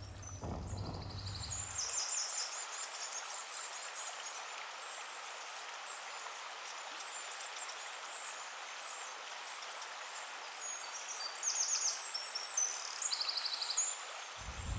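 Outdoor ambience: a steady hiss with short, rapid high-pitched chirping trills heard several times, most clearly near the middle and near the end. A low hum runs through the first two seconds and then stops.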